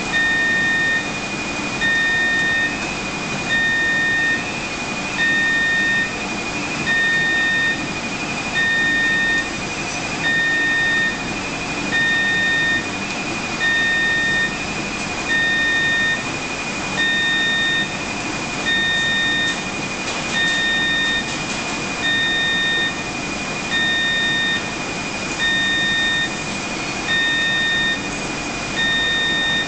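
An electronic alarm beeping over and over, each beep just under a second long and repeating about every 1.7 seconds, over a steady high whine and a constant equipment hum.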